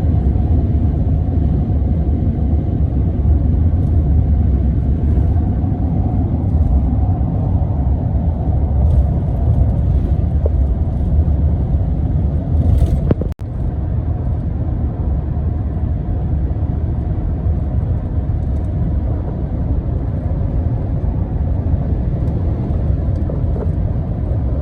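A motor vehicle driving on the road, giving a steady, loud rumble of engine and road noise. It breaks off for an instant about halfway through and carries on.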